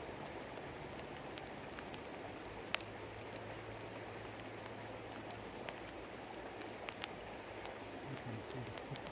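Rain and flowing river water: a steady hiss with scattered sharp ticks of drops, the loudest about three seconds in.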